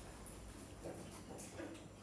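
A fennec fox and two dogs scuffling at close quarters on a vinyl floor: faint, irregular patter and shuffling of paws and bodies, with a few soft knocks.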